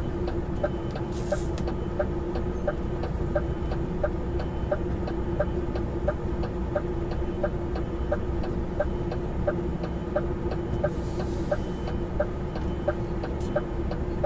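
Truck cab interior with the diesel engine idling in a steady hum and the turn-signal or hazard-light indicator ticking evenly, about two to three clicks a second.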